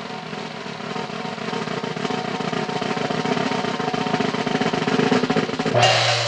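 A snare drum roll that swells in loudness, then a gong struck once with a padded mallet near the end, which rings on with a steady low hum.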